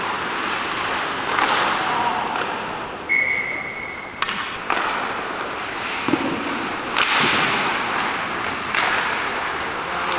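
Ice hockey play: skates hissing on the ice and sharp clacks of sticks and puck against the boards, with a referee's whistle blown once for about a second, about three seconds in.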